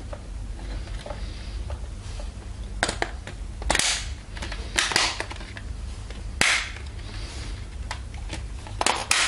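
Plastic snap-fit clips of a TP-Link TD-W9970 router's case clicking into place one by one as the cover is pressed shut: about half a dozen sharp snaps spread over several seconds, the loudest near the middle.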